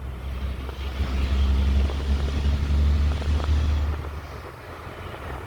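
Dump truck's diesel engine exhaust rumbling with a deep, steady note that fades about four seconds in.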